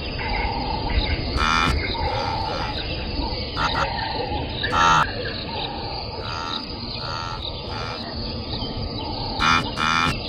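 Savanna nature ambience: a steady bed of insect-like noise with short animal calls every few seconds, the loudest about a second and a half in, near five seconds, and twice near the end.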